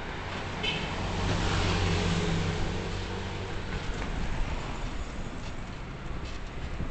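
Street traffic heard from a moving vehicle: a motor vehicle's engine hum and tyre noise swell about a second in and fade again a couple of seconds later, over steady road noise.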